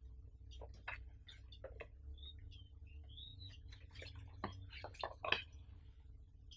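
Two small cardboard retail boxes for Baseus micro USB cables handled in the hands: faint light taps, clicks and scrapes as they are picked up and turned over, with a sharper knock about five seconds in.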